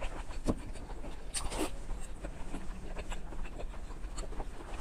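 Close-miked eating sounds: soft, wet chewing and lip smacking on fatty red-braised pork belly, with irregular small clicks and a couple of louder squelches in the first two seconds.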